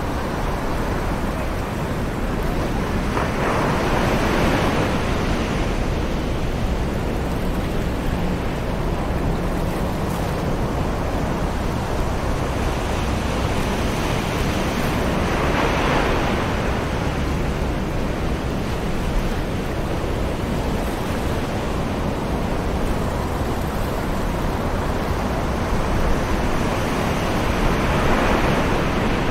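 Distant ocean waves breaking on a beach: three slow swells of surf about twelve seconds apart over a continuous hiss.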